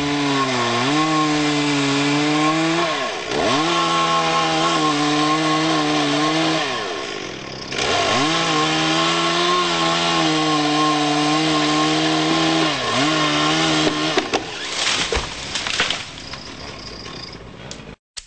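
Chainsaw running at high revs while cutting limbs from a decayed ash tree, its pitch dipping three times as the chain bites, then stopping about two-thirds of the way through. A few sharp knocks follow.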